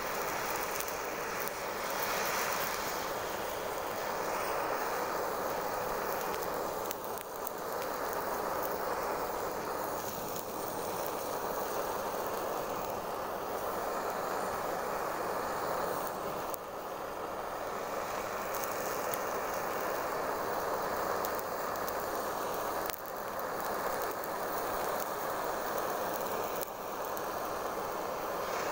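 Handheld gas torch flame hissing steadily as it burns over a large armoured sucker fish, with a few brief dips in the sound.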